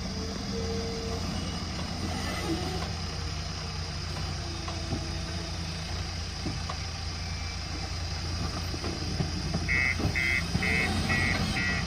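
JCB backhoe loader's diesel engine running steadily. Near the end an alarm starts beeping, about two to three beeps a second.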